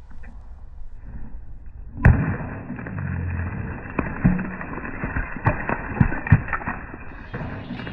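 One hard sledgehammer blow about two seconds in, followed by a scatter of sharp cracks and clattering pieces as the struck object breaks apart.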